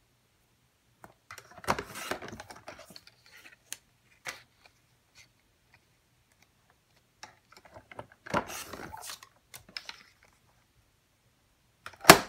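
Creative Memories sliding-blade paper trimmer cutting white cardstock: the cutting head slides along its rail in short noisy passes, about two seconds in and again around eight and a half seconds, with the paper being handled and small clicks between. A sharp click near the end starts another pass.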